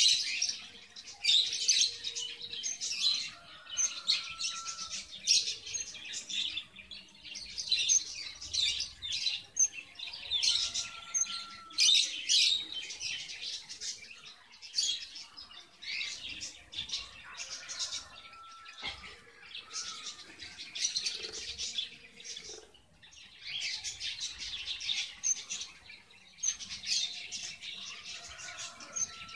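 Red avadavats (strawberry finches) chirping and twittering in a cage, in bouts of rapid high chirps separated by short pauses.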